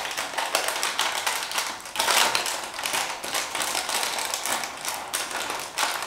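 Thin plastic wrapper crinkling and crackling as hands fit it over the cut edge of a plastic water bottle, a dense run of small crackles with the bottle's thin plastic ticking under the fingers.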